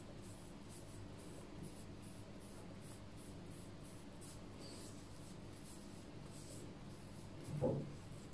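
Cotton pad rubbing on the skin of the brows in faint, quick, repeated strokes as eyebrow tint is wiped off. Near the end there is one short, louder low bump.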